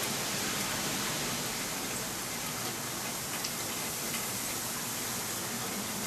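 Steady hiss of wintry precipitation falling, with a few faint ticks of drops landing.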